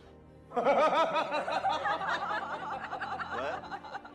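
People laughing, a run of quick chuckles that starts about half a second in and trails off near the end.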